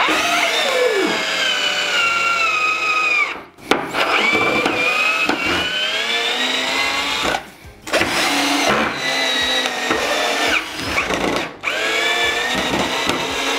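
Two 12V cordless drill/drivers, a Ryobi HJP004 and a Ridgid R82005, running at the same time, driving 3-inch screws into a 2x6 and then reversing them out. Their motor and gear whine drops in pitch as the screws bite and load the motors. The whine stops and restarts three times, and rises in pitch during one run.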